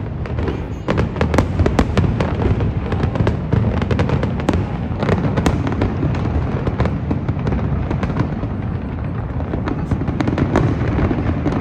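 Fireworks display: a dense, unbroken run of bangs and crackles over a constant low rumble.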